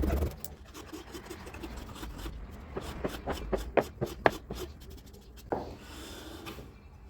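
Hand work on wood: pieces rubbed and scraped against each other, with a quick run of sharp clicks and knocks in the middle. A louder noise cuts off just after the start.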